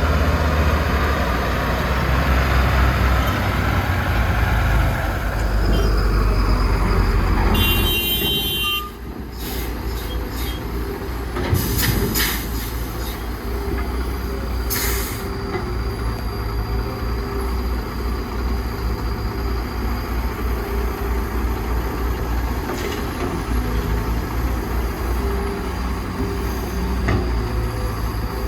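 Heavy diesel machinery working: a deep engine drone under load that eases to a lower, steadier running sound after about eight seconds, with a couple of short hisses in the middle.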